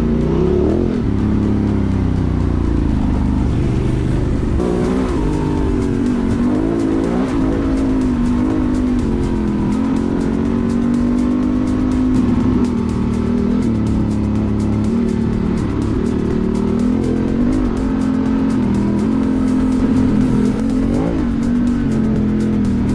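Honda Transalp XL750's parallel-twin engine running through a Mivv Dakar exhaust and Arrow decat pipe while riding, the revs rising and falling again and again with the throttle.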